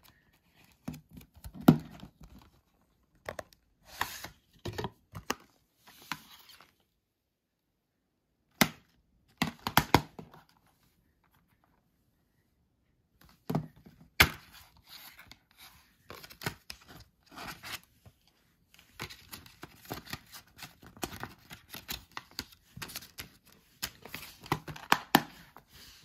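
Handling noise from a Blu-ray combo pack: the cardboard slipcover rubbing and sliding against the plastic case, with scattered sharp clicks and knocks of the plastic case against a wooden floor. The noise comes in short bursts with a couple of quiet pauses, and is busiest near the end.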